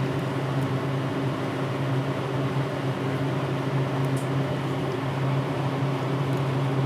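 Steady mechanical hum of a fan, a low drone with a few fainter steady tones above it. A faint tick comes about four seconds in.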